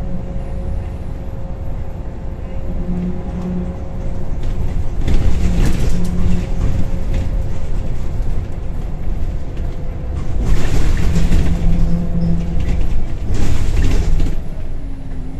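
Scania L94UB Wright Solar single-deck bus heard from inside the passenger saloon while on the move: its diesel engine and driveline drone steadily. The sound grows louder and rougher twice, about five seconds in and again from about ten to fourteen seconds.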